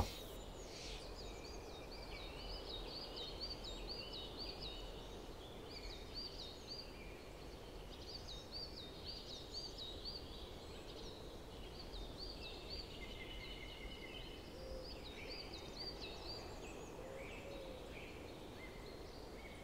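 Faint birdsong: runs of short, high, quickly repeated chirps from small birds, over a low steady background hiss.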